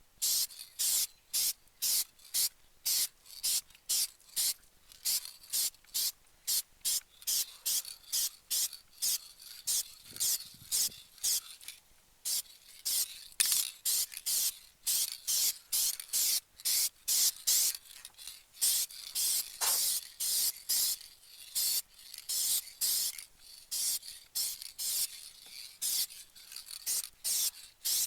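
Aerosol spray can of colour-matched automotive top-coat paint spraying in short hissing bursts, about two a second, laying down the first coat over a repaired body patch.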